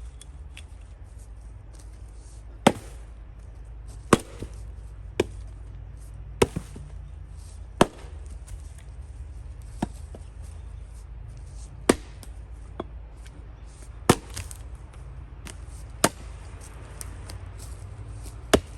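Axe striking firewood again and again while splitting by hand: about ten sharp, separate whacks, one every two seconds or so.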